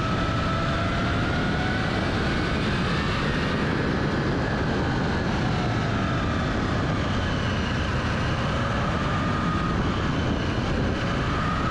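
Sport motorcycle riding on a winding road: a steady rush of wind and road noise on the bike-mounted camera, with an engine whine that slowly rises and falls in pitch as the speed changes.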